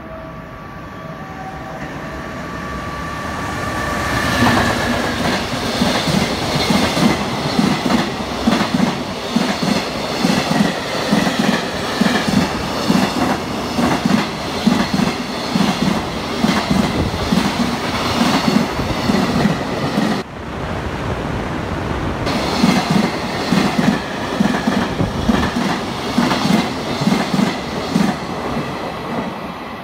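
JR Freight EF210 electric locomotive and its container wagons passing along the track. It begins with a steady whine as the locomotive approaches. About four seconds in comes a loud, rhythmic clickety-clack of wagon wheels over the rail joints, which carries on with a brief lull about twenty seconds in and eases near the end.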